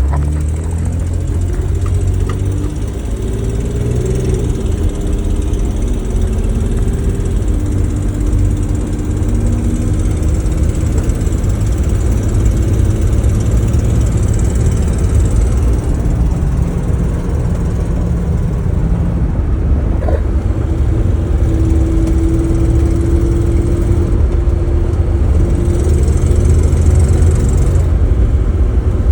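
Mercedes-Benz 280GE's straight-six petrol engine idling steadily, with a ticking noise from the engine.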